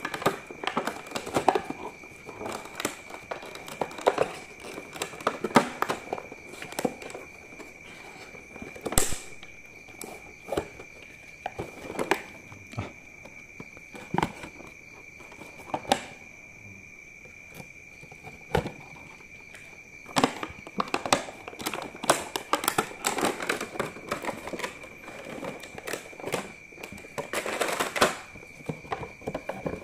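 A cardboard retail box and its clear plastic tray being handled: scattered clicks, taps and rustling as the box is opened and the tray slid out, with denser rustling in the second half. A steady faint high tone runs underneath.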